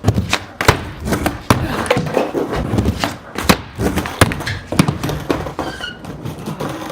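Skateboard clattering on a ramp and the ground during a bailed trick attempt: a rapid, irregular series of hard knocks and slaps from the deck and wheels, with rolling noise underneath.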